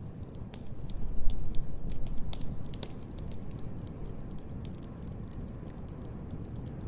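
Wood fire in a fireplace crackling, with scattered sharp pops over a steady low rumble that swells about a second in and then settles.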